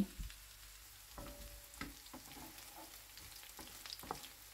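Diced potatoes and sausage slices frying quietly in oil in a pan over a turned-down gas flame, with a few short knocks and scrapes of a wooden spatula against the pan as they are stirred.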